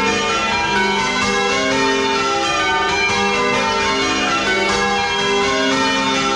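Change ringing on full-circle church bells, a 10 cwt ring, heard close up in the belfry. The bells strike one after another in quick, even succession, each note ringing on under the next.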